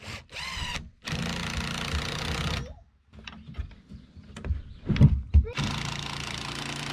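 Cordless drill driving screws through metal plumber's strap into a wooden board: the motor runs for about a second and a half, stops, then clicks and a sharp knock from handling, and the drill runs again near the end.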